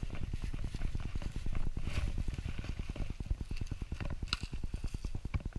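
Wind buffeting a chest-mounted GoPro's microphone: a steady low rumble made of rapid flutters. A couple of short sharp clicks near the end.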